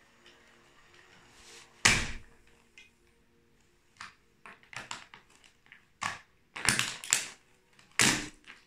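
Plastic toy train and track snapping and crunching under stiletto heels stamping down on them: a string of sharp cracks. The loudest comes about two seconds in, and a dense cluster of cracks follows from about six to eight seconds.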